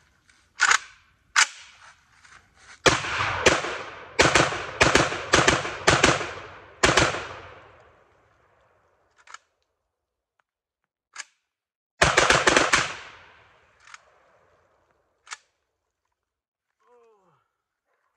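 Gunfire from a Pioneer Arms Hell Pup AK-pattern pistol in 5.56. Two single shots open, then a rapid string of shots runs for several seconds. A short fast burst comes about twelve seconds in, with a few fainter single reports between and after.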